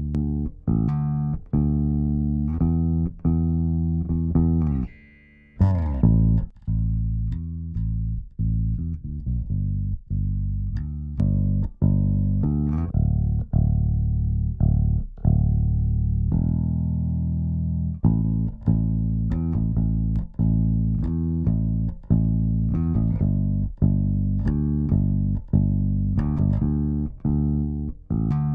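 Solo bass guitar playing a plucked line at an even level, run through the SSL Native X-Comp compressor plugin. There is a short break about five seconds in.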